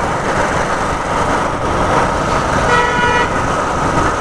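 Steady rushing wind and road noise from a moving motorcycle. About three seconds in, a vehicle horn sounds once for about half a second.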